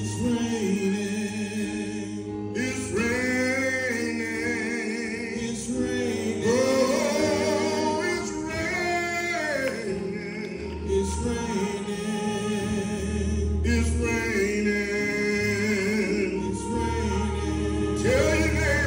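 A man singing a slow gospel song with long, wavering held notes over keyboard accompaniment of sustained chords and low bass notes.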